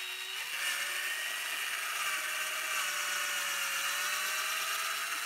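Cordless drill running at slow speed, driving a 10-32 combination drill-and-tap bit through PVC molding. It makes a steady motor whine that steps up slightly in pitch about half a second in, then holds.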